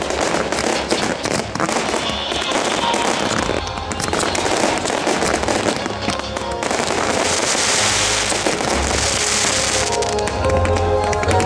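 Fireworks display: a dense run of bangs and crackling from bursting shells, with a spell of hissing crackle about two-thirds through. Accompanying music comes up clearly near the end.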